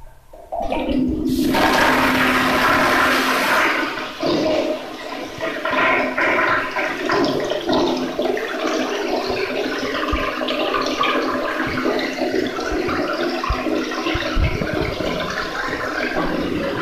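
Wall-hung toilet flushed from its concealed cistern with the wall-mounted flush button. A loud rush of water starts half a second in and is harshest for the first few seconds, then settles into a long steady water rush with a low hum under it.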